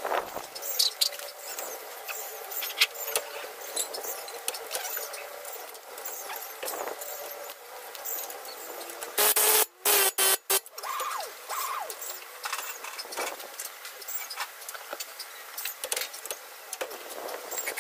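Hand tools clinking and scraping on the steel suspension parts, with scattered sharp metallic clicks. Around ten seconds in there is a loud, harsh burst of noise that cuts in and out abruptly.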